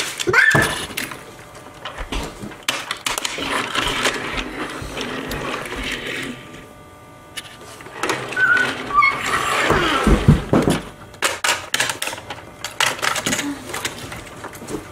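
Die-cast toy cars and plastic toy hauler trucks being handled and set down on a tabletop: a steady run of small clicks and knocks.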